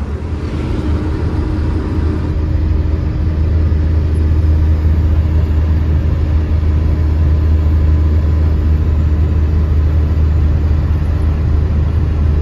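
Truck's diesel engine and road noise heard inside the cab while driving at speed: a steady low drone, growing a little louder over the first few seconds and then holding.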